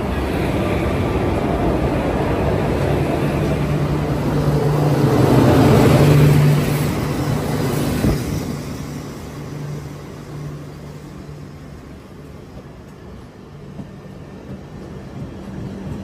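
Indian Railways LHB coaches rolling slowly past close by, with a steady rumble from wheels on the track. A diesel generator car's engine hum swells as it passes, loudest about six seconds in, then fades.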